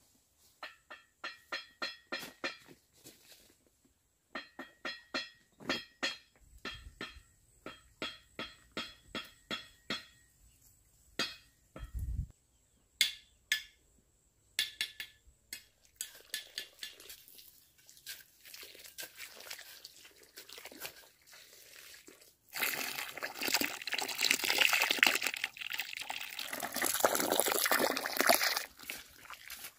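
Bricklaying: a mason's steel trowel tapping and clinking on bricks and mortar, a quick run of ringing clinks at about two or three a second, then scattered knocks. Over the last six seconds there is a loud, steady rushing noise.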